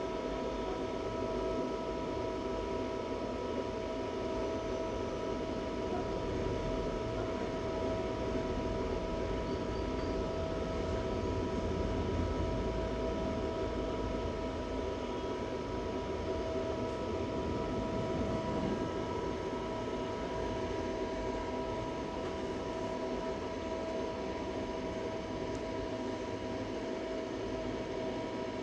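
Steady machine hum and hiss with a few constant whining tones, unchanging throughout.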